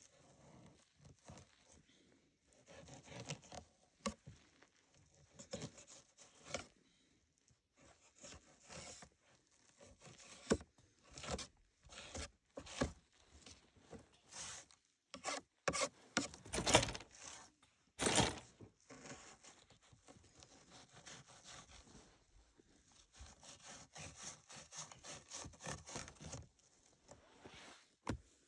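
A knife cutting and scraping along a small fish on a wooden board as it is filleted and skinned: a run of irregular rasping strokes, loudest about halfway through.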